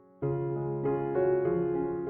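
Slow, gentle piano music: a held chord fades almost away, then a new chord is struck a moment in and a few more notes follow.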